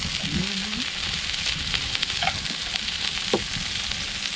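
Yellowtail kingfish fillets frying skin-side down on a hot barbecue grill plate: a steady sizzle with scattered crackles of spitting oil.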